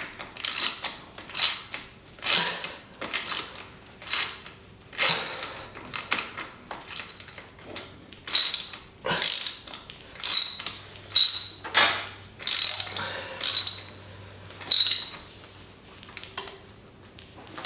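Hand tools working metal parts of a motorbike under assembly: a run of short metallic clicking, ratcheting strokes, about one a second and unevenly spaced.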